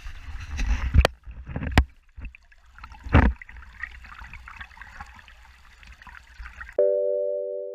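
Wind rumbling and buffeting on the microphone outdoors, with a few sharp knocks in the first few seconds. Near the end a sustained music chord comes in abruptly.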